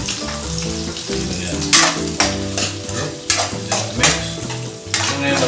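Egg, garlic, onion and chili sizzling in a hot metal wok as a metal spoon stirs and scrapes them. The spoon knocks and scrapes sharply against the pan several times from about two seconds in.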